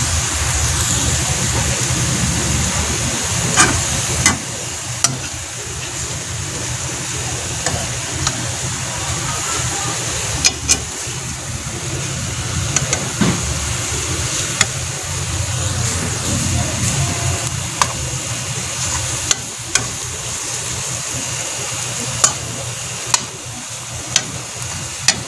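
Ground pork with onions and carrots frying in a metal pan, with a steady sizzle. A slotted metal spoon clicks and scrapes against the pan at irregular moments every few seconds, over a steady low hum.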